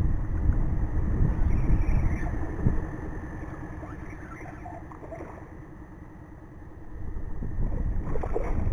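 Wind rumbling on the microphone over a faint steady hum, easing in the middle. Near the end a hooked smallmouth bass splashes at the surface.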